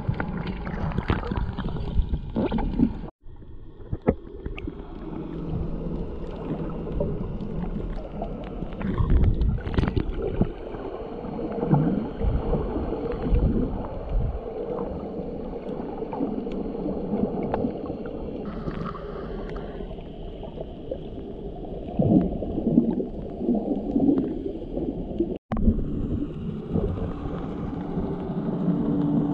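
Muffled underwater water noise, sloshing and gurgling, picked up by a camera in a waterproof housing, with abrupt breaks where the shots are cut.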